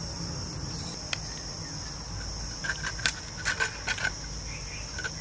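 Insects chirring steadily in the background. Over them come a few sharp clicks and cracks as a raw sea crab's shell is pried apart by hand, most of them in a quick cluster around the middle.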